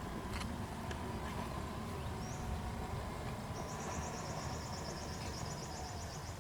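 Outdoor nature ambience: a steady low rush with a high, rapid trill coming in about halfway through and running on, about seven pulses a second.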